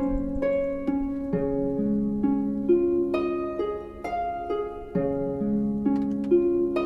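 Background music: a gentle melody of plucked notes, harp-like, about two notes a second over held lower notes.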